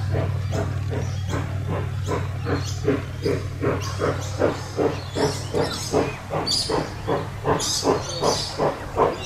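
Queensland Rail C17 class 4-8-0 steam locomotive C17 974 working along the line, its exhaust chuffing in a steady rhythm of about two and a half to three beats a second, the beats growing sharper toward the end.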